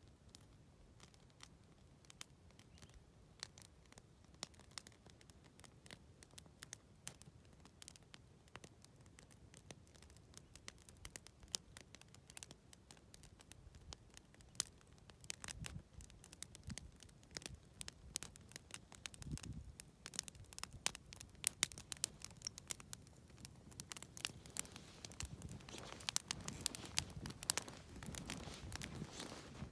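Horses walking through deep snow: faint, scattered crunches of hooves in the snow and creaks and clicks of saddle and pack tack, with a few dull thuds. The sounds grow busier and louder over the last several seconds.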